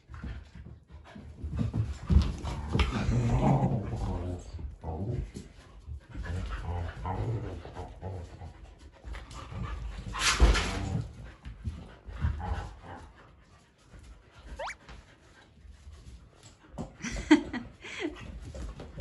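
Several dogs play-fighting: growls and yips mixed with scuffling, coming in uneven bouts with short lulls.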